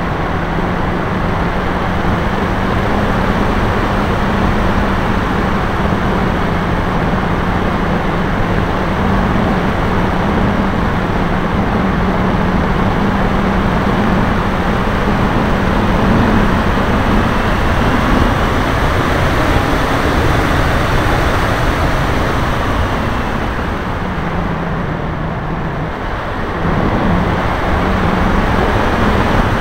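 Max 1500 motor glider in flight, heard from its onboard camera: a steady rush of wind over the airframe with a low motor hum. The noise eases and the hum breaks off briefly near the end, then both pick up again.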